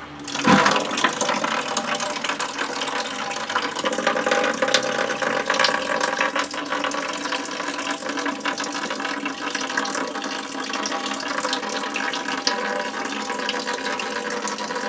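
Water from an old gas hot-water boiler running out of its drain into a bucket, a steady pour that starts suddenly just after the beginning.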